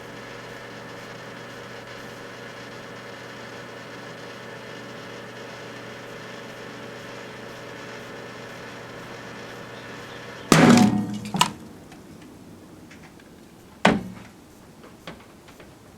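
Microwave oven running with a steady hum while a small bottle of alcohol-based Purell hand sanitizer heats inside. About ten and a half seconds in, the bottle bursts with a loud bang that blows the oven door open, and the hum stops at once. A few seconds later comes a second sharp knock.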